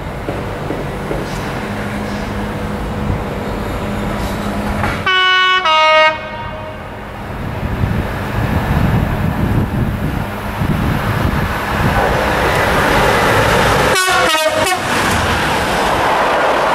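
Class 66 diesel locomotive sounding its two-tone horn as the train approaches at speed, two tones one after the other about five seconds in, then a quick run of short tones about fourteen seconds in. Under the horn, the locomotives' EMD two-stroke V12 diesels give a low rumble that grows louder as they pass close by.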